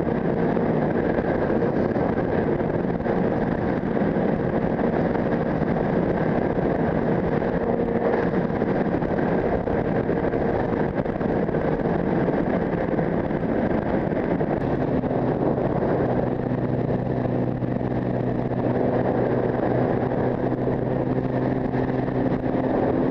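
Sport motorcycle running at a steady cruise with wind rushing over a helmet-mounted camera. About fifteen seconds in a lower steady hum joins it, stopping shortly before the end.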